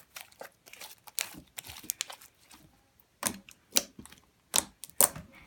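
Homemade glue-and-borax slime being kneaded and stretched by hand, giving irregular sticky clicks, squelches and pops, several of them sharp and loud.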